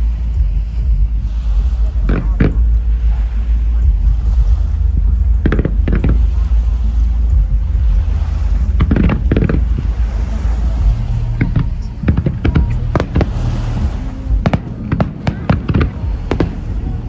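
Aerial fireworks exploding: a few separate booms, then a rapid run of bangs and crackles from about two thirds of the way in, over a steady low rumble.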